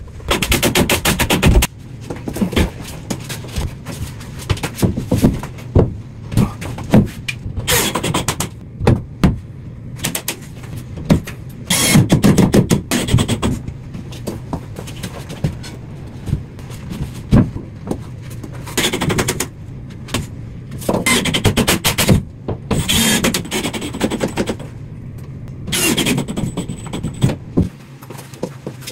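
Cordless drill driving drywall screws into the studs in short whirring bursts every few seconds, with knocks and scrapes in between.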